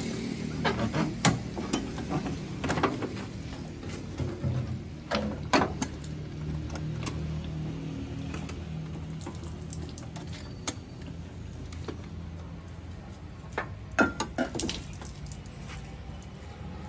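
Sharp clicks and knocks of the air-cleaner housing being handled as its lid is unfastened and lifted off the engine, in a cluster over the first few seconds and again about two-thirds of the way in, over a steady low hum.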